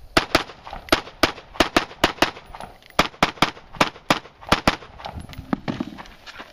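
Rapid gunfire from a long gun on steel targets: about sixteen sharp shots, mostly in quick pairs, stopping a little under five seconds in.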